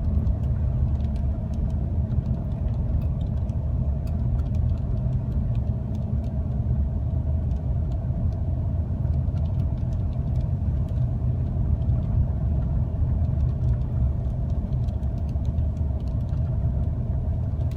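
Steady low rumble of a car driving, engine and tyre noise heard from inside the cabin, with faint scattered ticks.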